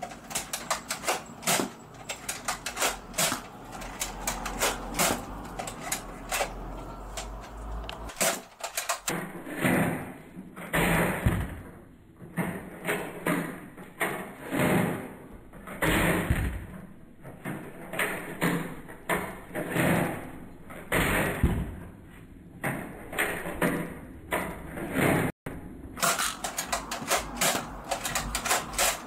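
Repeated plastic clicks and knocks of a Nerf foam-dart blaster being handled and primed. The clicks come thickly at first, then as separate knocks about once a second.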